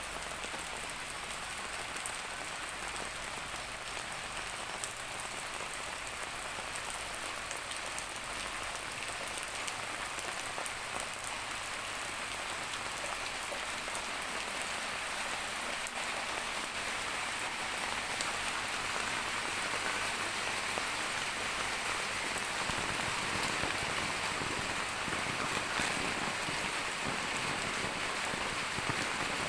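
Steady rain falling, an even hiss of drops with scattered sharper drop ticks, growing a little louder in the second half.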